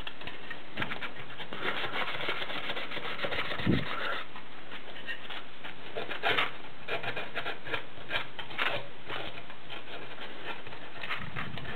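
Medium-grade sandpaper rubbed by hand in short irregular scratchy strokes against the plastic inside the lip of a Polaroid camera body, roughening the surface so parts can be glued to it. A brief louder knock comes nearly four seconds in.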